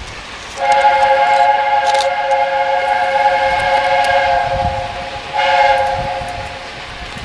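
Steam locomotive chime whistle: one long blast of about four seconds, then a short second blast, each sounding several notes at once as a chord.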